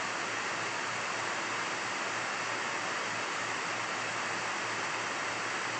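Steady, even background hiss of the recording microphone, with no other sound.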